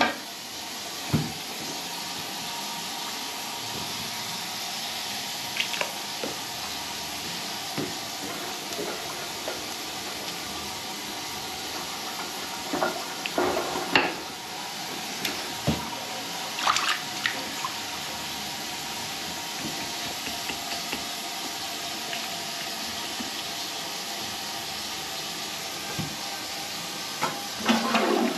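Water running steadily from a tap, broken by occasional short splashes and knocks as a drain rod with a rubber plunger head is worked in a blocked, brimming toilet bowl. Near the end a loud rush of water starts as the blockage clears and the bowl empties.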